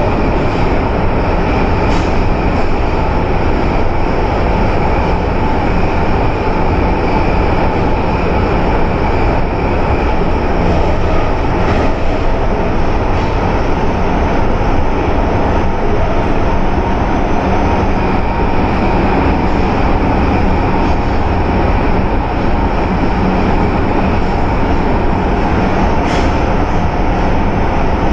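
Osaka Metro 400 series electric train running steadily at speed, heard from inside the passenger car: an even rumble of wheels on rail with a faint steady hum. A few light clicks come through, about two seconds in, around twelve seconds in and near the end.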